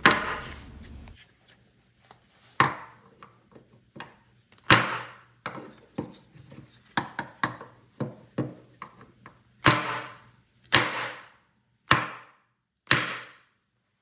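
Microtech MSI ram-lock folding knife, held in a clamp, whacked spine-first onto a bare wooden butcher block in a spine-whack test of its repaired lock. About a dozen sharp wooden knocks come at uneven intervals, mostly a second or two apart, each with a short ringing tail.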